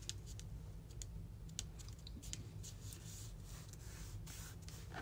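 Faint, scattered small clicks and light rubbing as fingers press a glued ribbon down onto paper cardstock, over a low steady hum.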